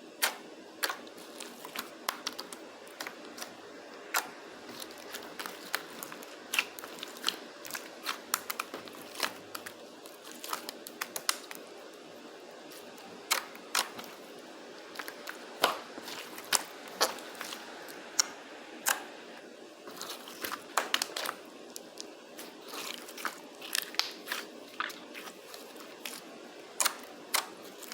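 Hands pressing and stretching a jiggly slime. The slime gives off irregular sharp clicks and pops, some in quick clusters, over a steady low background hum.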